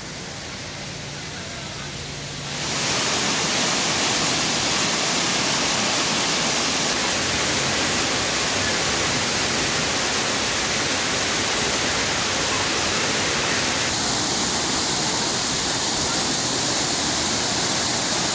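Artificial rock waterfall pouring onto boulders into a pool: a loud, steady rush of falling water that comes in suddenly about two and a half seconds in, after a quieter background.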